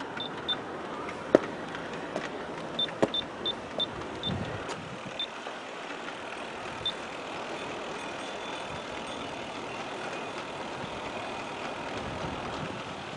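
G-scale model train rolling along the track with its locomotive motors running, a steady running noise broken by sharp clicks of wheels over rail joints.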